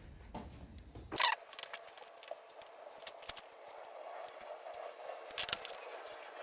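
Faint hand-handling noises of small wiring parts: light rustling and scattered small clicks, with a sharper click about a second in and a few more around five seconds, as wire terminals are fitted into plastic connector housings.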